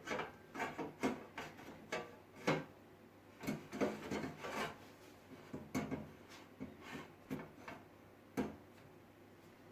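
An IDE hard drive being slid and fitted into the metal drive bay of a PC case: a run of irregular clicks, knocks and short scrapes of metal on metal.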